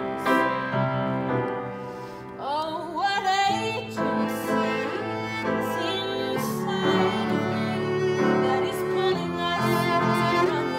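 Bowed cello and upright piano playing a slow song together, with a woman singing over them; the playing dips briefly about two seconds in, then swells again.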